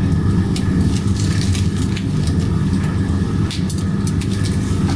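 Pork steaks sizzling on a charcoal grill, with scattered crackles of fat over the coals above a steady low rumble.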